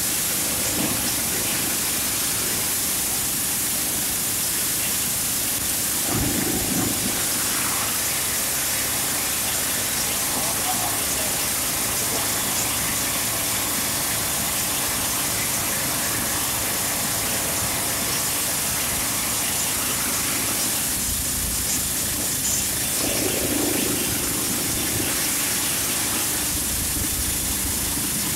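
Steady, loud hissing rush, with faint voices heard briefly twice.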